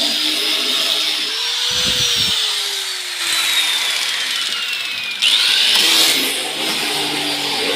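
Electric wood-sanding machine running. Its motor whine slowly drops in pitch, then about five seconds in it jumps back up, louder, as it picks up speed again.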